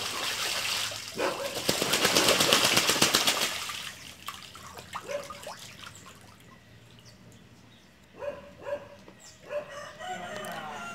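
Ducks bathing in a shallow concrete water trough, beating their wings and splashing water; the splashing is loud for about four seconds, then dies down to light sloshing.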